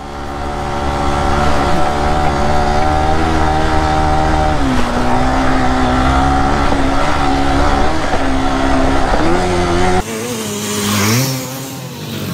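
Single-cylinder motorcycle engine running hard at steady revs, its pitch dropping about four and a half seconds in. Near the ten-second mark the sound changes abruptly to wind rush, with an engine revving up a second later.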